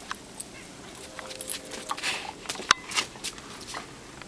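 A dog moving about in snow with a rubber ball: a run of short clicks and scuffs, loudest a little under three seconds in.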